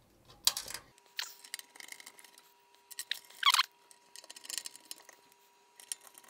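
Small handling sounds of hands working wires and metal fittings inside a steel disk-drive case: scattered light clicks and rustles, with a short squeak about three and a half seconds in, over a faint steady tone.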